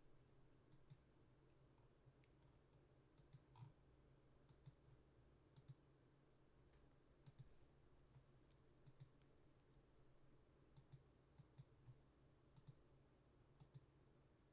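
Near silence: faint, irregular clicks from a computer at the streaming desk, over a low steady hum.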